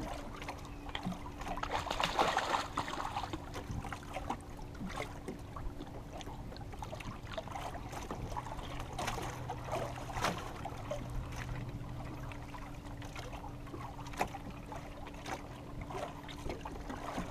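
Lake water trickling and lapping beside a boat hull, with small clicks and knocks from hands working a wet fishing line and a louder rush about two seconds in. A faint steady hum runs underneath.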